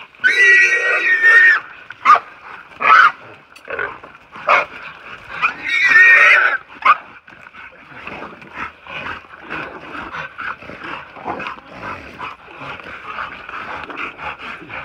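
A wild hog squealing in loud, high bursts, five or six of them over the first seven seconds, as catch dogs hold it; after that a quieter, busy scuffling of dogs and hog struggling in the dirt.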